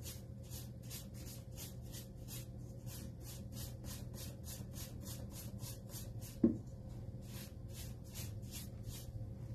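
A paintbrush scrubbing chalk-style paint onto a wooden bookshelf, the bristles dragging back and forth about four strokes a second. Near two-thirds of the way through there is a short pause and one brief, louder pitched sound.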